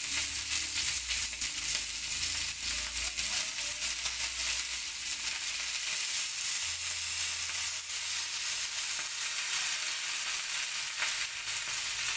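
A thick beef steak searing in hot oil in a frying pan, held on its edge: a steady sizzle with many small crackling pops of spattering fat.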